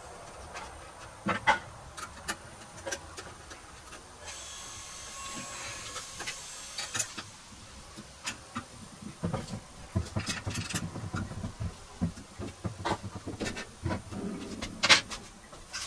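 Scattered clicks and knocks of a stunt scooter's front wheel and metal axle bolt being handled and fitted into the fork, over a faint hiss. The sharpest knock comes near the end.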